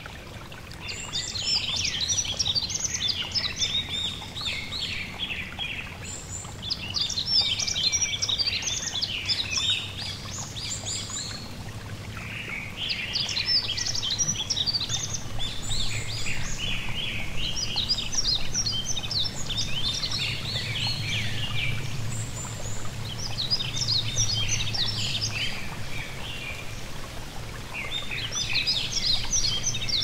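Yellow-throated bunting singing: phrases of quick high notes, each lasting a few seconds, repeated with short pauses. A gentle stream makes a steady low rush beneath.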